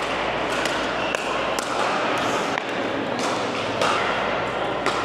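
Pickleball paddles striking plastic balls: about eight sharp pops at irregular intervals, over a steady background hubbub of voices and play.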